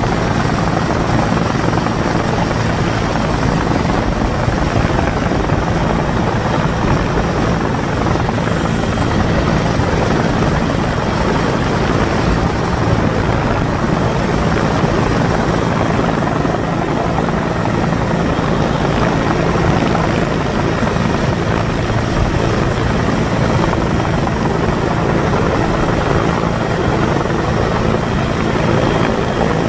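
Rescue helicopter hovering, its rotor and turbine engine making a loud, steady noise, heard from the open cabin door.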